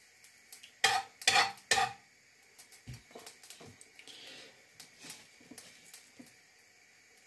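Kitchenware clattering: three sharp clinks with a brief ring in quick succession about a second in, then scattered light knocks and taps.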